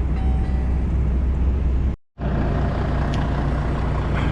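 Truck engine running, heard from inside the cab as a steady low drone. It cuts out abruptly about two seconds in, then comes back as a steadier hum with a clearer low note.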